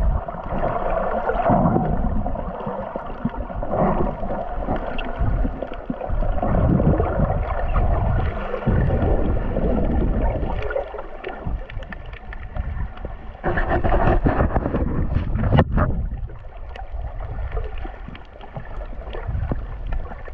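Muffled, rumbling water noise picked up by a camera held underwater while snorkeling, swelling and fading as the swimmer moves, with a louder stretch of sloshing about two-thirds of the way in and one sharp click.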